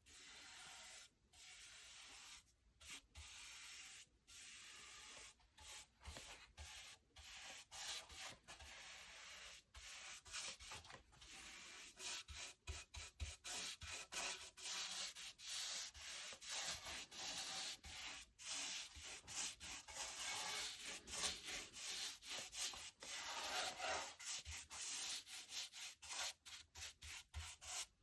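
Oil being rubbed into an oak surface by hand: a soft, hissy rubbing in back-and-forth strokes, long and slow at first, then quicker and shorter from about halfway.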